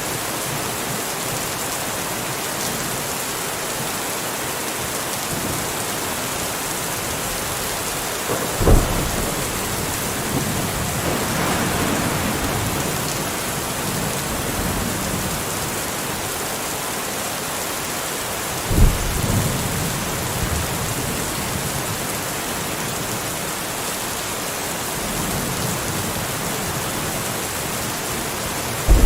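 Steady rain falling, with thunder: a sharp crack about nine seconds in, rolling on for a few seconds, and another about nineteen seconds in.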